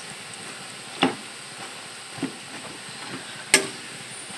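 Besan-coated peanuts sizzling steadily in hot oil in a kadai, while a metal spoon stirs them to separate the clumps, clanking against the pan a few times, the loudest clank about three and a half seconds in.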